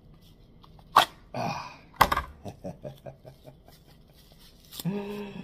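Two sharp clicks, about a second apart, as a large fixed-blade knife is pulled free of its sheath and the sheath is set down. Between and after them a man gives a falling exclamation, chuckles in short fading bursts, and hums briefly near the end.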